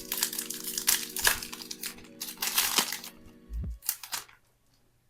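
Foil trading-card pack wrapper crinkling and tearing open in a quick series of rustles that stop about four seconds in, with soft background music holding a steady chord underneath.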